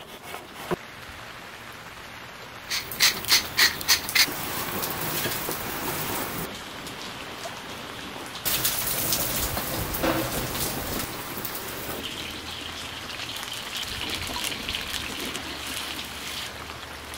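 A chef's knife slicing potatoes on a wooden cutting board, with a quick run of about six chops around three seconds in. From about halfway there is a steady hiss of sliced potatoes sizzling in hot oil in a pan.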